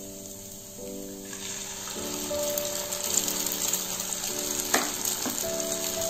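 Egg sizzling as it hits the hot oil in a frying pan with sautéed onion and capsicum; the sizzle starts about a second in and grows louder, with one sharp tap near the end. Background music with steady held notes plays throughout.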